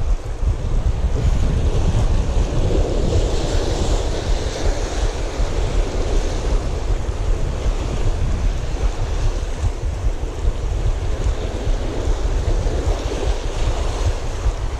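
Heavy wind rumble on the microphone over a steady wash of surf breaking on the reef shore.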